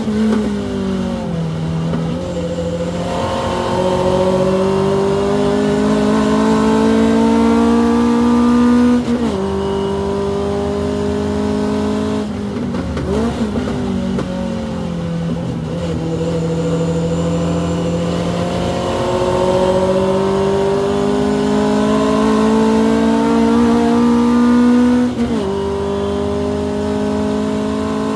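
Hillman Avenger's four-cylinder engine under hard acceleration, heard from inside the racing car. The note climbs steadily and drops sharply at each gear change, about nine seconds in and again near the end. There is a brief unsettled lift partway through.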